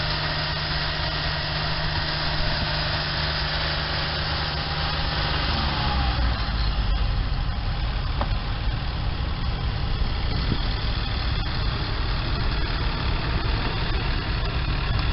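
Portable sawmill's engine running steadily. About five and a half seconds in, its note drops and it settles into a heavier, lower rumble.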